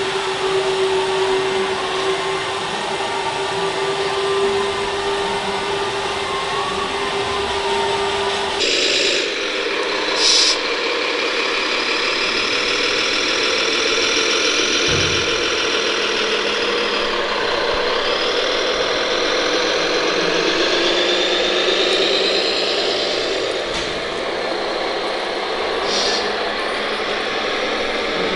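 An RC hydraulic excavator's pump gives a steady mechanical whine with one held tone. About nine seconds in, this gives way to an RC model Bell B40D articulated dump truck's drive whining, rising and falling in pitch as it drives, with a few short hisses.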